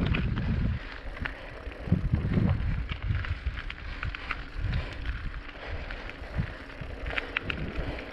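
Wind rumbling on the microphone of a moving bicycle, gusting hardest in the first second and again about two seconds in. Light scattered ticks and rattles come from the bike rolling over cracked asphalt.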